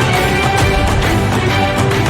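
Corporate theme music with a steady beat and held notes.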